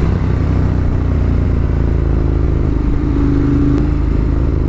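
Ducati Monster 1200 S's L-twin engine running at a steady pitch while riding at road speed, with wind rush, heard from a microphone inside the rider's helmet.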